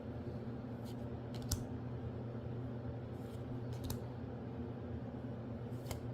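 Magic: The Gathering cards being handled, with a few short light clicks and snaps as cards are flipped and laid down, the sharpest about a second and a half in. A steady low hum runs underneath.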